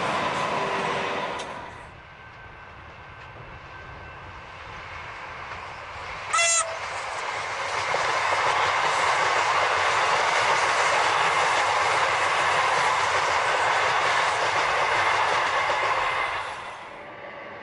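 Melbourne suburban electric multiple-unit trains passing on the line. The running noise of one train dies away about two seconds in. A short horn blast comes about six seconds in, then a Siemens Nexas train passes with a loud, steady rush of wheels on rail that falls away near the end.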